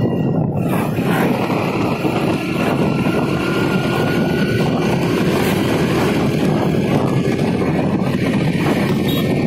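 Riding a motorbike on the open road: a steady, loud rush of wind on the microphone mixed with the running engine and road noise.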